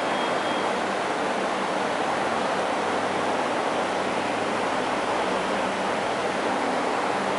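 Aquarium water circulation: a steady rushing noise with a faint low hum underneath.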